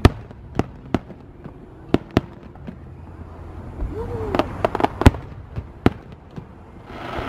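Aerial firework shells bursting in a public display: about a dozen sharp bangs at irregular intervals, coming in a quicker cluster about four to five seconds in.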